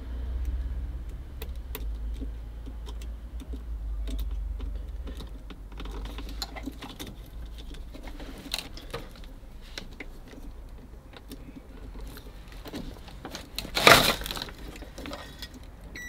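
Small clicks and rattles of car wiring connectors and a multimeter lead being handled while tracing an electrical fault, with a low rumble in the first few seconds and one louder bump near the end.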